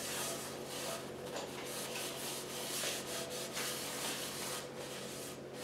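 Paper towel rubbing a thin coat of vegetable oil around the inside of a Lodge cast iron skillet, a dry scrubbing swish in quick repeated strokes, about two or three a second, as the pan is seasoned.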